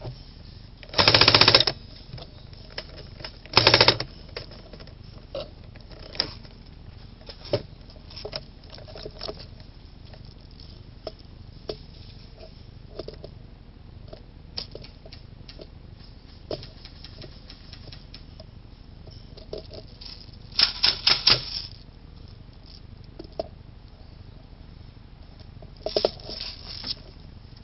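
Airsoft gun firing four short rapid bursts: two close together near the start and two later on, the third broken into several separate shots. Faint clicks and rustling fill the gaps between bursts.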